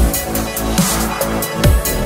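Electronic dance music with a heavy beat of deep kick drums that drop in pitch.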